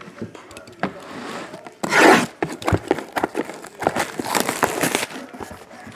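Clear plastic shrink wrap being torn and crinkled off a trading-card box by hand, in irregular rustling bursts, the loudest about two seconds in.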